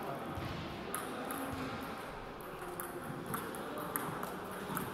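Table tennis rally: the ball clicking sharply off the bats and the table, a few clicks a second, starting about a second in, over a low hum of the hall.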